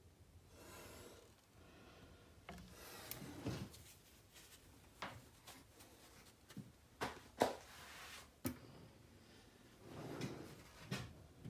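Hand tools being handled on a steel workbench and in a tool bin: scattered sharp metal clacks and knocks with rustling and scraping between them. The loudest clack comes a little past the middle.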